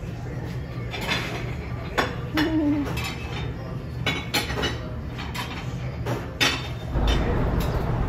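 Clatter and clinks of dishes and utensils in a pizzeria kitchen, several sharp knocks over a steady low hum. About seven seconds in it gives way to a louder low rumble.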